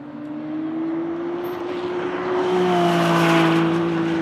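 McLaren Artura GT4 test car's twin-turbo 3.0-litre V6 under acceleration, the engine note rising slowly in pitch as the car comes past, loudest about three seconds in.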